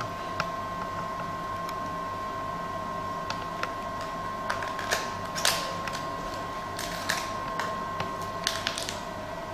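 Scattered sharp clicks and crackles of a plastic-packed microneedle cartridge being handled and unwrapped, the loudest about halfway through, over a steady high-pitched electronic whine.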